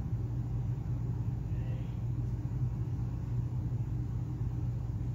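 A steady low hum with a faint rumble beneath it, unchanging throughout.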